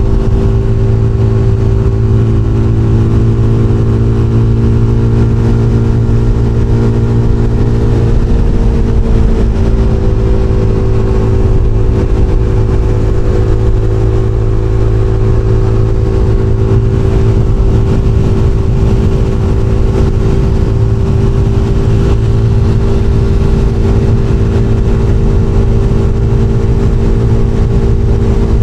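SBM 250 S motorcycle engine and exhaust running at a steady speed, its note stepping slightly about eight seconds in.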